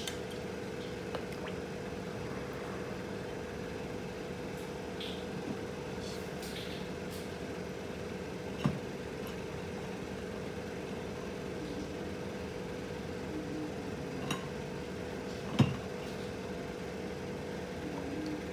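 Steady low hum with a constant tone, over which a few short knocks sound as a glass beaker is handled upside down under water in a plastic basin. The loudest knock comes about two thirds of the way through.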